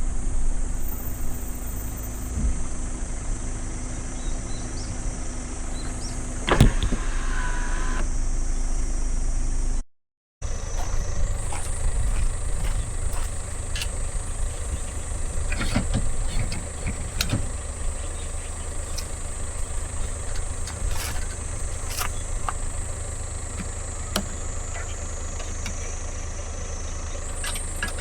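A vehicle engine running under steady road and wind noise. There is a sharp knock about six and a half seconds in, and the sound drops out completely for a moment about ten seconds in.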